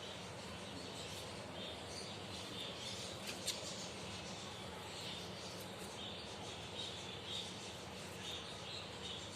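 Finches chirping: many short, high chirps overlapping over a steady hiss, with one sharp click about three and a half seconds in.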